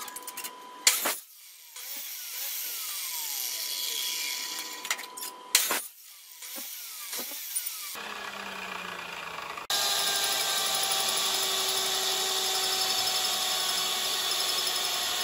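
Abrasive cut-off saw cutting square steel tubing, with a sharp knock or two as the tube is handled. About ten seconds in, a drill press starts drilling through steel tube and runs steadily, louder than the saw.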